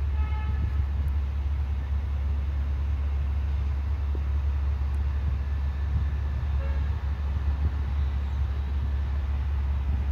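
Steady low outdoor rumble with no clear event in it, and a brief pitched tone in the first half-second.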